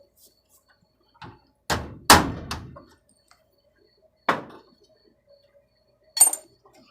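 Several sharp knocks and clanks of the thin sheet-metal drawer parts being worked by hand, about five in all. The loudest two come close together about two seconds in, and the last one near the end has a bright metallic ring.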